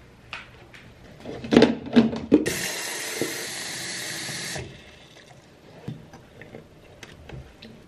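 Bathroom tap running into the plastic water tank of a Canopy humidifier for about two seconds and then shut off abruptly. A few knocks of the tank being handled come just before, and small plastic clicks of the cap follow.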